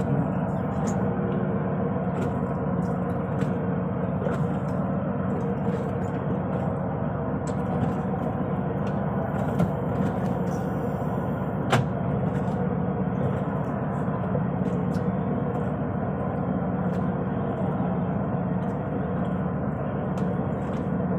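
A boat engine running at a steady speed, a constant drone with a few light knocks over it; one knock, about halfway through, is sharper than the rest.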